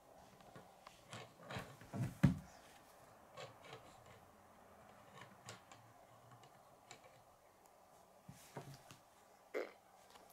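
Faint clicks and taps of small plastic Lego pieces being handled and pressed on a wooden table, with a short, louder low sound about two seconds in.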